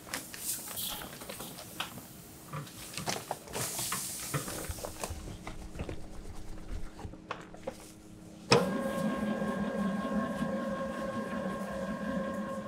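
Flour poured from a paper sack into a stainless steel stand mixer bowl, with paper rustling and light knocks. About two-thirds of the way through, the mixer's motor starts with a sudden thump and then runs with a steady hum.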